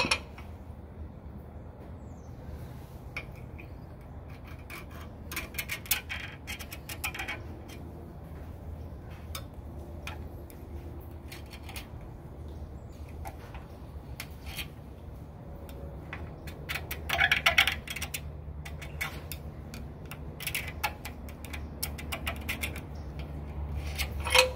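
A steel pick scratching around the edges of a steel cam tab gusset held against the frame's control arm mount, scribing its outline: irregular short scrapes and clicks in clusters, the loudest about two-thirds of the way through, over a steady low hum.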